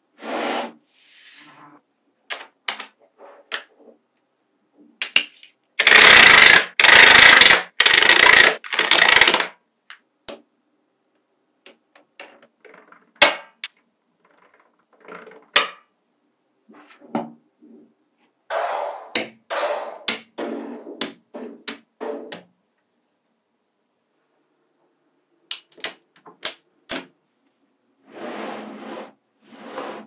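Small magnetic balls clicking and snapping together as they are handled and fitted into walls, in scattered sharp clicks. About six seconds in comes a loud rattling clatter of many balls at once, lasting about three seconds, and a shorter cluster of clatter follows a little past the middle.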